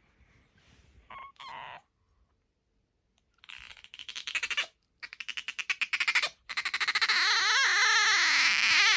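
Asian small-clawed otter squeaking: a couple of short calls, then rapid pulsed chirping from about three and a half seconds in, then from about six and a half seconds a loud, continuous shrill squeal that wavers up and down in pitch.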